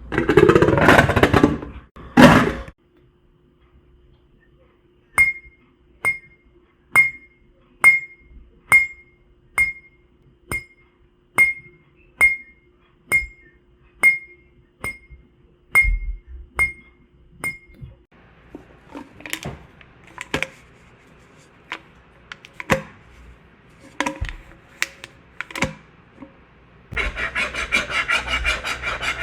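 A run of separate sound effects: a short loud noisy burst, then about fifteen sharp ringing clinks, roughly one a second, over a faint steady hum, then scattered softer knocks, and about two seconds before the end a steady raspy rubbing starts.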